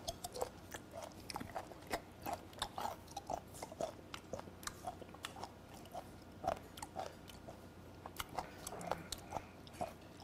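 Close-up chewing of a piece of fermented skate nose (hongeo-ko), a run of short, irregular clicks about two or three a second as the jaw works.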